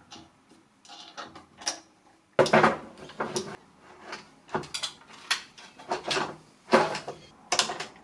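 Aluminium parts clacking and knocking against each other and the wooden table as T-slot aluminium extrusions and a bearing-plate assembly are handled and fitted together. The knocks are irregular, the loudest about a third of the way in, then several more about a second apart.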